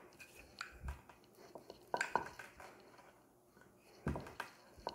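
Wooden rolling pin knocking and rolling on a marble board as a small disc of dough is rolled out. Faint scattered clicks and taps, with a cluster about two seconds in and a heavier knock and roll about four seconds in.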